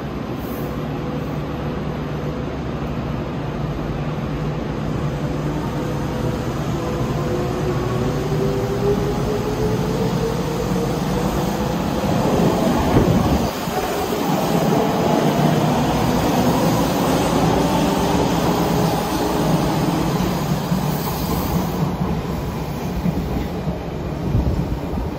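Odakyu 1000-series electric train hauling the Kuya 31 track-inspection car pulling out of an underground station: the traction motors' whine rises steadily in pitch as it accelerates. It runs over wheel and rail noise that grows loudest about halfway through, as the cars pass.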